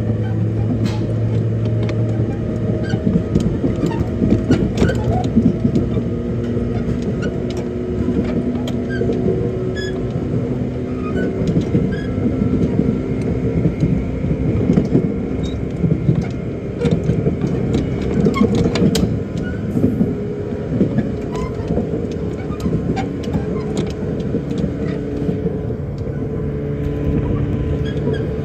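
485-series electric train running at speed, heard from inside the car: a steady rumble and hum from the running gear, with frequent sharp clicks and knocks from the wheels on the track.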